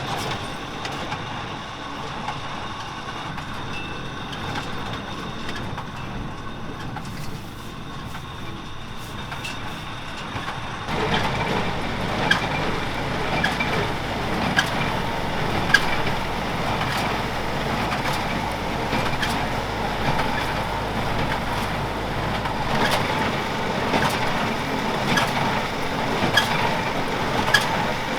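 Kubota diesel tractor running while it pulls an International small square baler. About eleven seconds in it gets louder, and from then on sharp knocks come roughly once a second, typical of the baler's plunger packing hay.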